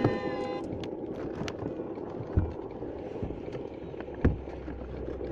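Car driving noise heard from inside the cabin: a steady low road-and-engine rumble with a couple of short thumps. A brief steady electronic-sounding tone cuts off about half a second in.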